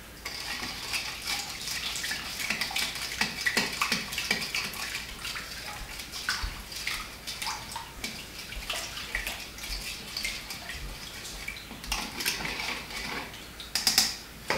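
Water with sugar and active dry yeast being stirred in a large stainless steel mixing bowl with a plastic spoon: continuous swishing with frequent light clicks of the spoon against the metal, and a few louder knocks near the end. This is the yeast being dissolved in lukewarm water before it is left to proof.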